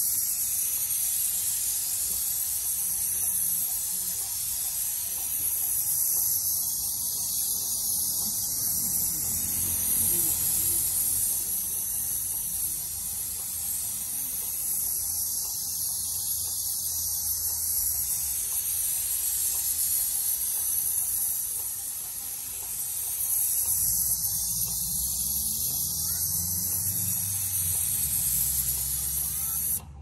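Airless paint sprayer's gun hissing steadily as it sprays paint, with a low hum beneath.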